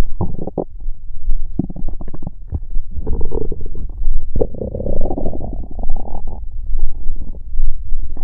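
Human stomach growling and gurgling: irregular bubbling pops and low rumbles, with a longer drawn-out gurgle from about three to six seconds in.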